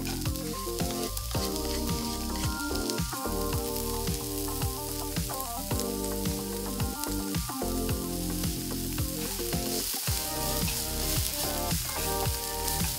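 Diced onion sizzling steadily in hot vegetable oil in a nonstick frying pan as it is stirred with a spatula, under background music.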